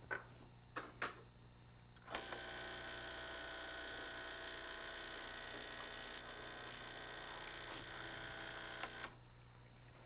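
A few clicks as the portafilter is locked into the brew head of a Starbucks Barista home espresso machine. About two seconds in, the machine's vibratory pump starts a steady hum, pushing hot water through the portafilter to warm it, and it cuts off sharply about seven seconds later.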